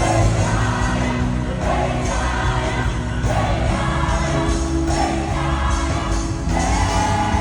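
Live worship music: a band playing with a choir and congregation singing together, loud and continuous, the sung phrases changing about once a second.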